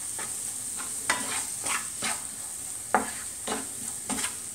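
Chopped onions sizzling in hot sunflower oil as they are sautéed with salt to soften. They are stirred with a utensil that scrapes and knocks against the pan seven or so times, the loudest strokes about a second in and near three seconds in.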